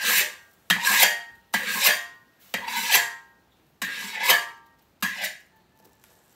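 Metal spatula scraping across a large iron wok in about six strokes, roughly one a second, each with a metallic ring.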